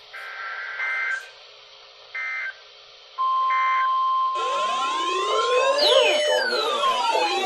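Emergency Alert System data bursts: short blasts of two-tone warbling, three or four of them about a second apart. A steady electronic alert tone starts about three seconds in. From about four seconds in, several electronic siren wails rise and fall over one another, loud and layered.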